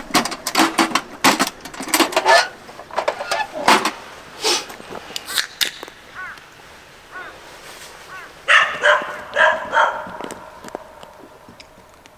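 A run of sharp clicks and knocks through the first half, then four or five short animal barks in quick succession about eight and a half seconds in.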